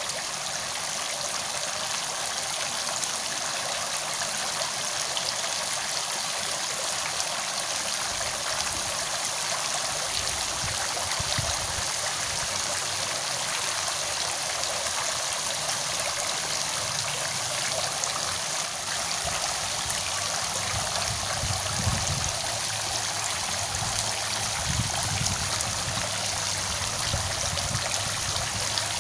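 Steady rush of flowing water, an even hiss that does not change, with a faint low hum coming in during the second half.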